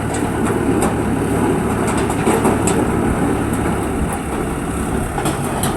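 Excavator engine running steadily with a low hum, with scattered light clicks and ticks over it.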